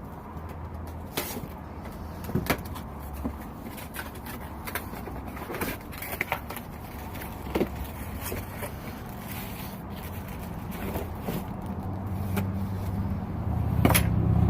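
A cardboard box being opened by hand: irregular crackles, scrapes and light knocks of cardboard flaps and packing, over a steady low rumble that grows louder near the end.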